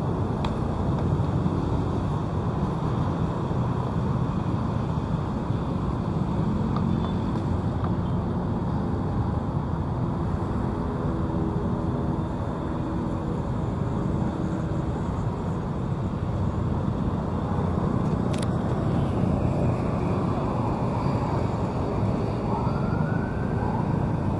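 Steady busy road traffic: engines and tyres of passing vehicles, with a short rising tone near the end.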